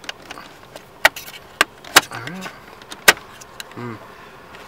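Four sharp plastic clicks and snaps from a 2007 Lexus GS console trim panel being pried up with a plastic panel tool, its plastic retaining tabs popping loose.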